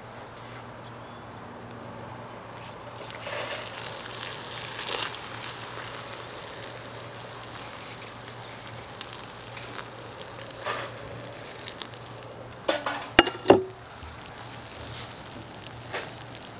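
Hot water poured from a steel pot into a plastic tub of dry ramen noodles, hot Cheetos and chicharrones, with a steady fizzing crackle as the dry snacks soak it up. A couple of sharp knocks come near the end.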